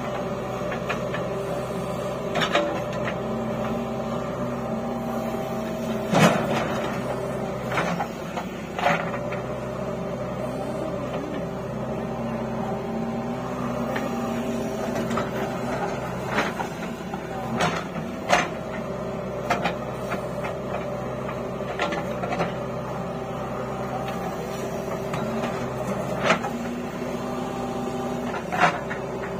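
JCB 3DX backhoe loader's diesel engine running steadily under digging load, with sharp clunks and knocks every few seconds as the backhoe bucket and arm dig soil and dump it into a tractor trolley.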